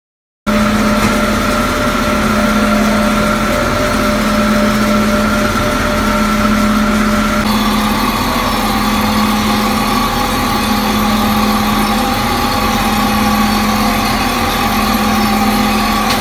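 Railway wheel lathe turning a train wheel and cutting its tread to reprofile a wheel damaged on slippery autumn rails. A loud, steady machine hum with a few held tones starts suddenly; the higher tones step down in pitch about halfway through.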